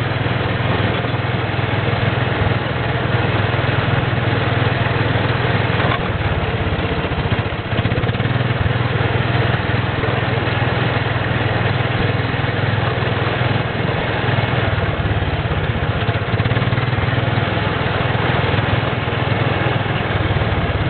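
Small engine of an amusement-park antique ride car running steadily as the car drives along the track, with a constant low hum.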